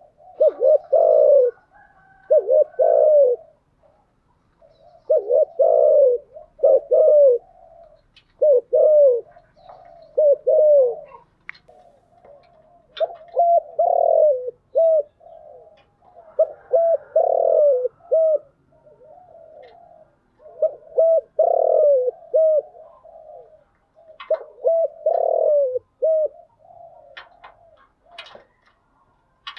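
Spotted dove (cu gáy) cooing: a lure bird's repeated phrases of two to four low coos, one every few seconds.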